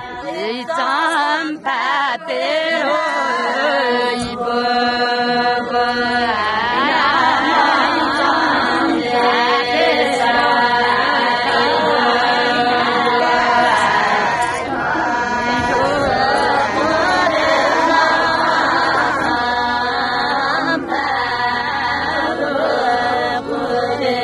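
Group of village women singing a traditional Champa dance song together in a slow, chant-like melody. This is the wedding song to whose rhythm the Champa dancer moves.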